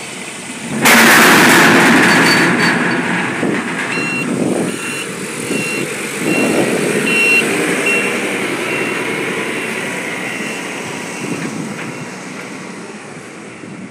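Mitsubishi forklift's engine revving up sharply about a second in, then running under load and fading as the forklift moves away. Its warning beeper sounds a steady series of short beeps, a little more than one a second, through the middle of the stretch.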